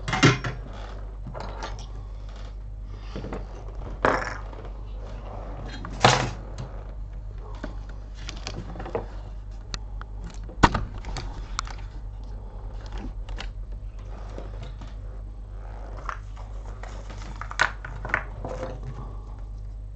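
Scattered knocks and clicks of tools being handled on a repair bench, about half a dozen, the loudest just after the start and at about six seconds. A steady low mains hum runs underneath.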